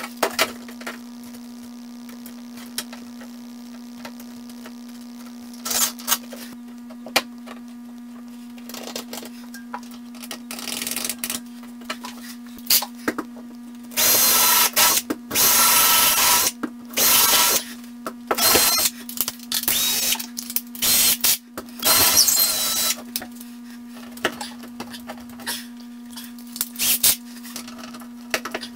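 Craftsman cordless drill running in several bursts of a second or more, drilling into drywall and driving screws for a shelf bracket, with scattered handling clicks and taps before and between, over a steady low hum. The footage is sped up four times.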